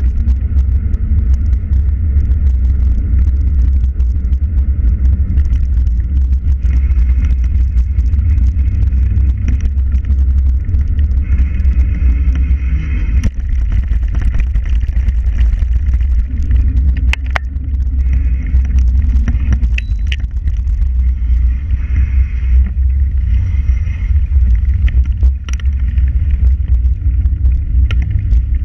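Steady, loud low rumble of wind buffeting and tyre noise on a camera riding along on a bicycle over a paved towpath, with a few sharp rattling clicks from bumps.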